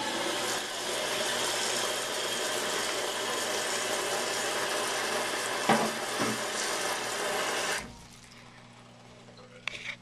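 Toilet tank refilling through its fill valve, a newer Fluidmaster 400A, with a steady hiss of running water that shuts off abruptly about eight seconds in. A short knock comes midway, and a couple of sharp clicks come near the end.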